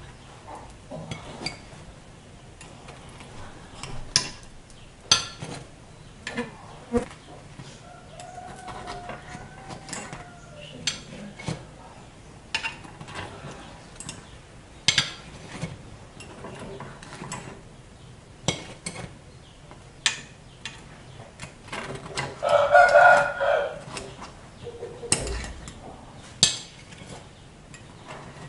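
A metal spoon scraping and clicking against an aluminium multi-cup cake mould as cooked cakes are prised out one by one, in short scattered clicks. About two-thirds of the way through comes the loudest sound, a drawn-out pitched call lasting about two seconds.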